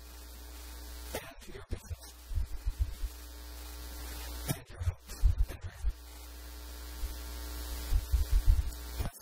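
Steady electrical mains hum in the sound system, slowly growing louder, with several clusters of low thuds like handling bumps.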